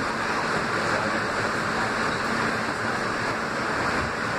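R160 subway car running through a tunnel, heard from inside the leading car: a steady noise of wheels on rail and running gear with a faint low hum under it.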